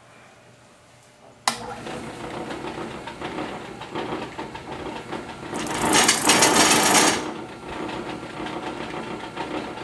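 Homemade Markham chicken plucker switched on about a second and a half in: its electric motor starts with a sudden click and runs steadily with a hum and a fast rattle, spinning the plucker empty. About halfway through, a much louder hissing rush lasts for about a second and a half before the steady running returns.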